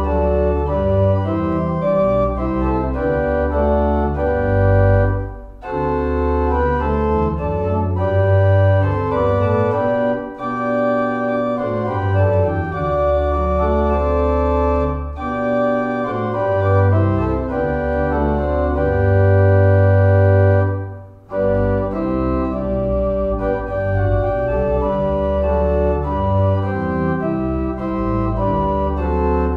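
Organ playing slow, held chords over a deep bass line, in phrases with short breaks about five seconds in and again about twenty-one seconds in.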